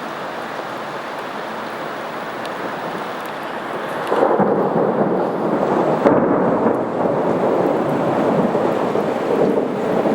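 Thunder from a lightning storm: a steady hiss, then a long rumble that rolls in about four seconds in, swells again a couple of seconds later and keeps rolling.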